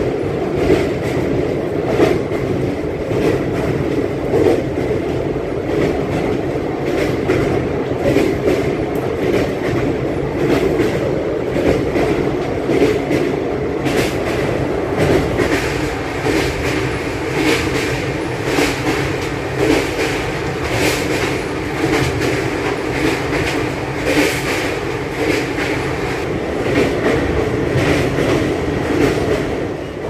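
Passenger train running at speed over a steel truss river bridge: a steady rumble with wheels clicking repeatedly over the rail joints.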